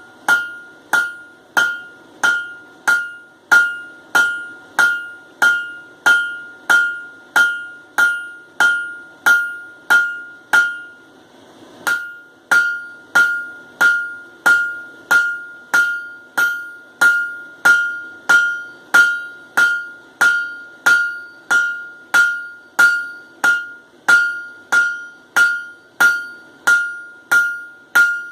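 Hand hammer striking hot mild steel on an anvil in a steady rhythm, about three blows every two seconds, each blow followed by a bright ringing tone. The blows break off for about a second near the middle, then go on. This is typical of drawing out the stock.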